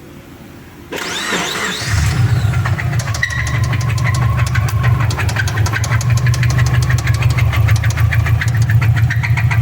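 Subaru Forester 2.5 flat-four engine cranked by the starter about a second in, catching a second later and settling into an idle with a fast, even ticking knock: the bad engine noise the owner is showing.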